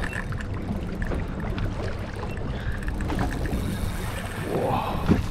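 Wind buffeting the microphone over water lapping against a small boat's hull, with scattered small knocks and a brief swishing wash near the end.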